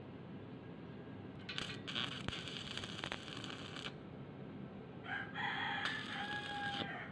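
Stick (arc) welder crackling as a nut is tack-welded to a steel car wheel rim, in two runs: one from about a second and a half in to about four seconds, another from about five seconds to near the end. A steady pitched tone runs through the second run.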